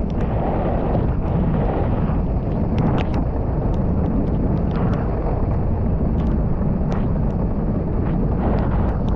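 Steady wind buffeting a camera microphone as a wing foiler rides at speed, with scattered sharp ticks of water drops hitting the camera.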